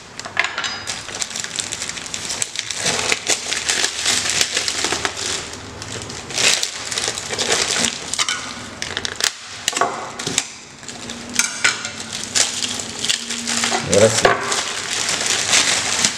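Clear plastic wrapping crinkling and rustling as it is pulled off wooden cutting boards by hand.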